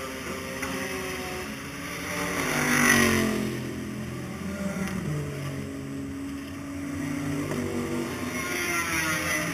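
Race car engine heard from onboard, rising in pitch as it accelerates to a peak about three seconds in, then running on at changing revs and picking up again near the end.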